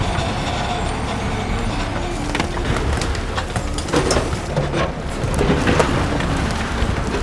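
Heavy construction machinery working: a dense, steady rumble with many clattering knocks and scrapes, busiest about four seconds in and again near the end.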